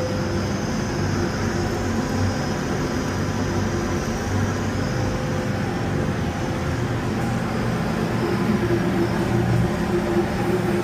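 Air-atomizing burner on a No. 2 oil boiler firing steadily, its flame, blower and air compressor making a continuous machine noise. The compressor air is being turned down because the flame was blowing too far from the burner, and a humming tone grows stronger in the last few seconds.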